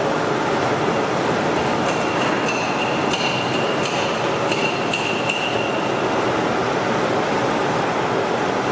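Plastic string (sutli) making plant running: a steady machine noise, with a few metallic clinks and a thin high tone between about two and five and a half seconds in.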